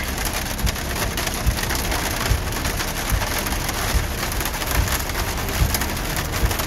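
Heavy rain pelting the roof and windshield of a Jeep, heard from inside the cabin: a dense, steady patter of countless small hits.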